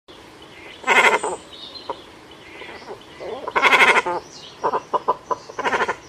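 Cormorants calling: three loud rasping, rapidly pulsed calls of about half a second each, about a second in, near the middle and near the end, with a run of short clicks and grunts before the last one and fainter calls in between.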